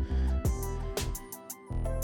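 Background music with a steady beat: held bass notes and regular drum hits.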